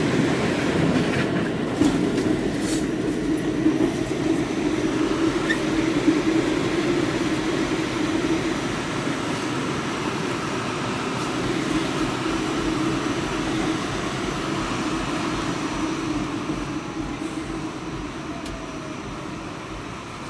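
Inside an R46 subway car running through the tunnel: a steady rumble of wheels and running gear with a few clicks over the rails. Near the end it grows quieter, with a faint falling whine, as the train slows.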